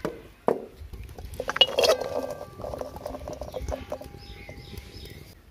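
A metal cooking pan clanks down onto a clay stove, then chopped figs are tipped into it. The pieces clatter and patter against the metal, densest about two seconds in, and the pan rings on for a few seconds.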